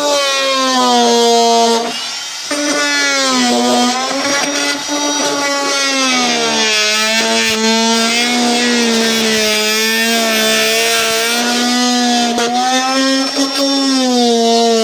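Small high-speed handheld power tool, such as a rotary tool, cutting plastic: a steady whine whose pitch sags and recovers as it bites, with a brief dip about two seconds in.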